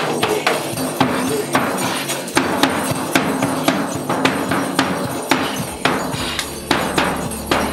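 Hide frame drum beaten in a steady rhythm, roughly two to three strikes a second, with a man's voice chanting along.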